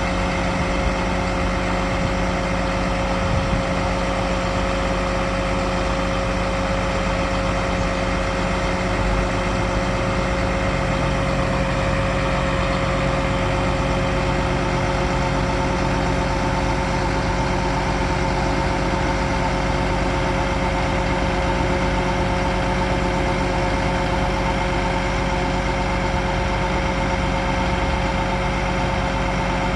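International DT466 turbo diesel engine running steadily, driving the hydraulics of the Altec AA755 boom while it is raised, with a steady whine over the engine.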